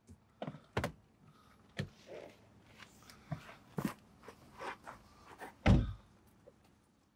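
Someone getting out of a car: scattered clicks and knocks and a few footsteps, then the car door shutting with a heavy thud near the end.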